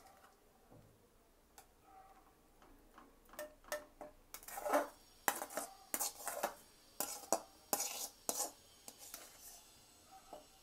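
Metal spoon clinking and scraping against steel vessels as rice is scooped into a pressure cooker: a run of sharp, irregular clinks, sparse at first, busiest in the middle, thinning out near the end.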